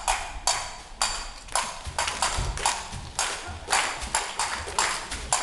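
Percussion played in a steady rhythm: sharp strikes about two a second with extra strokes between, each ringing on with a metallic tone.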